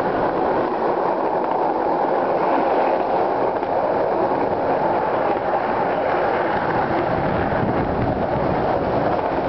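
Skateboard wheels rolling fast on a concrete parking-garage floor: a steady, unbroken rumble.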